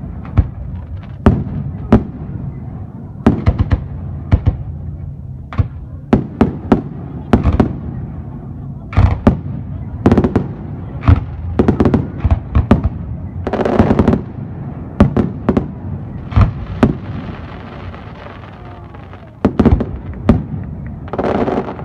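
Aerial fireworks bursting in quick, irregular succession: many sharp, loud bangs, some in rapid clusters, with stretches of crackling and hissing between them.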